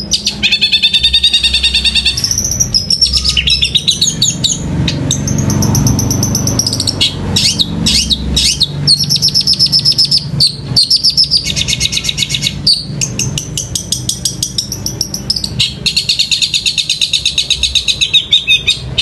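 Long-tailed shrike (cendet) singing in long runs of fast, high, repeated chattering notes, with imitations of Eurasian tree sparrow (burung gereja) chirps worked in, and a few short pauses between runs.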